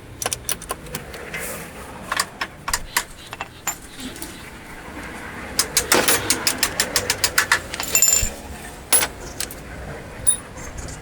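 Metal tools and parts clicking and clinking in quick runs, densest about halfway through.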